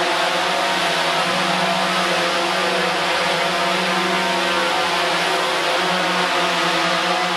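DJI Phantom quadcopter hovering, its propellers giving a steady multi-tone whine. The pitch shifts slightly about six seconds in as the motors correct.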